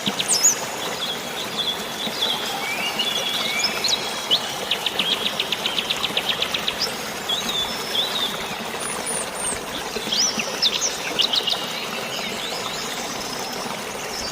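Several birds chirping and calling, one with a rapid trill of about ten notes a second partway through, over a steady hiss of flowing water and light rain.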